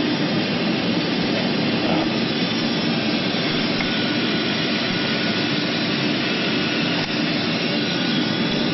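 Jet airliner engines running steadily, heard from inside the passenger cabin as a constant rushing hum.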